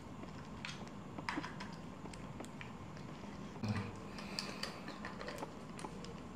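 Scattered light clicks and taps of hand tools on bicycle parts during handlebar fitting, with a somewhat louder knock a little past the middle.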